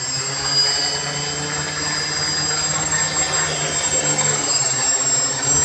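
Homemade prototype quadcopter drone's electric motors and propellers running with a steady buzzing whine.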